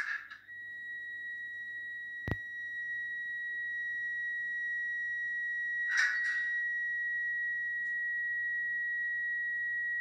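Zimo MS450 16-bit sound decoder in a Roco ÖBB 1043 model locomotive, playing the electric loco's sound through its small speakers: a steady high-pitched whine sets in about half a second in and holds. A sharp click comes about two seconds in, and a short hiss around six seconds.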